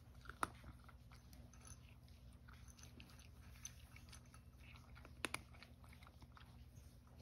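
A cat crunching dry kibble from a bowl: faint, scattered crunches, with a sharper click near the start and another about five seconds in.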